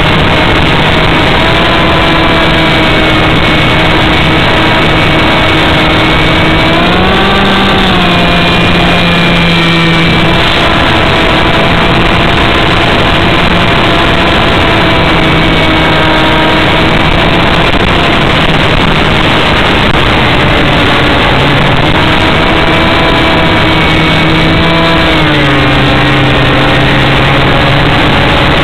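Radio-controlled model plane's motor and propeller, heard close up from a camera mounted on the plane: a loud, steady drone over wind rush. Its pitch rises briefly about seven seconds in, settles back, and drops lower near the end.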